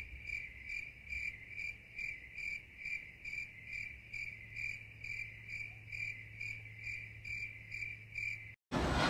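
Cricket-like chirping, an even run of about two and a half short high chirps a second, which starts and stops abruptly.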